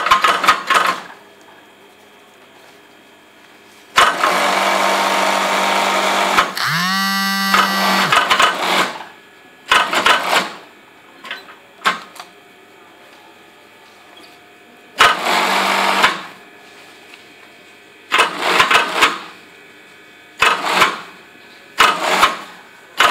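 JUKI industrial sewing machine stitching in stop-and-start bursts, mostly under a second each, with one longer run of about four seconds whose pitch rises and then holds near its end.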